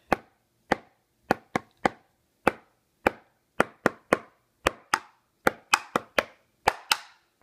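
Drumsticks striking a Remo practice pad: sharp taps, some single and some in quick pairs or threes, unevenly spaced at about two to three a second.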